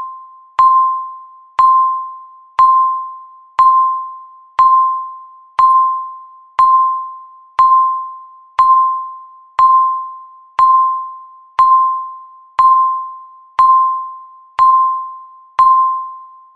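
Countdown timer beeping once a second, each beep marking one second left near the end of the countdown: a single mid-pitched electronic tone that starts sharply and fades away before the next, sixteen times, bell-like.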